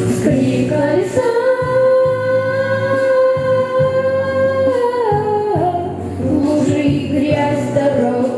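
A child singing over backing music, holding one long note for about four seconds before the pitch slides down and the line moves on.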